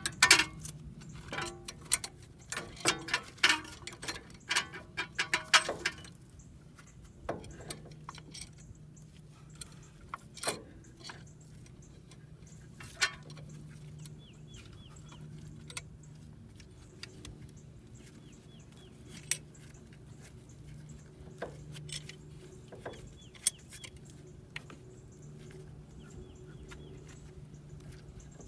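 Metal tools and brake parts clicking and clinking during work on a rear disc-brake caliper. A quick run of clicks and knocks comes in the first six seconds, then scattered single clicks.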